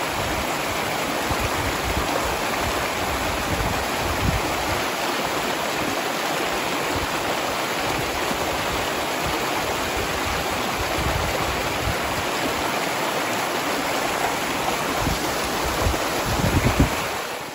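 Shallow stream running over rocks and small cascades: a steady rushing of water.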